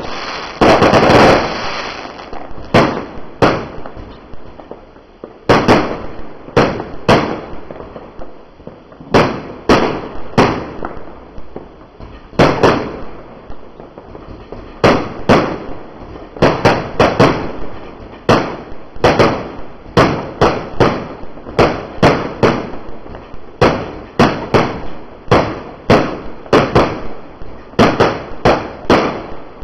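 Low-noise 1.4G consumer fireworks going off in a continuous irregular run of sharp pops and bangs, about one or two a second, each fading quickly. A denser, louder burst of several pops runs together about a second in.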